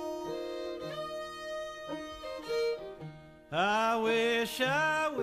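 Old-time Appalachian ballad: a fiddle holds slow, sustained notes in the instrumental gap between verses, and about three and a half seconds in a man's voice comes in, louder, singing the opening of the next verse with a wavering pitch.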